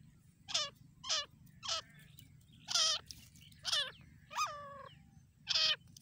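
Female grey francolin calling: seven short calls at uneven gaps of about half a second to a second, each sliding down in pitch.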